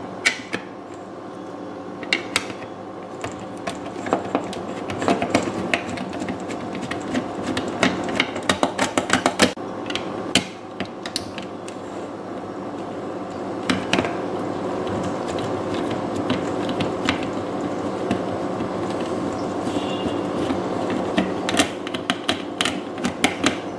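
Small clicks and taps of a precision Phillips screwdriver and the plastic Xbox One controller shell being handled as its screws are backed out, with a quick run of clicks about eight seconds in. A steady hum sits underneath.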